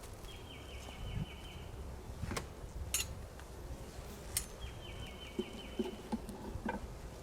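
Honeybees buzzing steadily around an open hive. Twice, a bird sings a quick trill of about eight notes. A few brief sharp clicks come in between.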